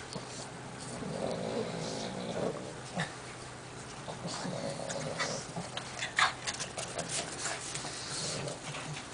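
Pug grunting and snuffling as it runs and jumps about in the snow, in irregular spells, with a quick run of sharp clicks and scuffs about six seconds in.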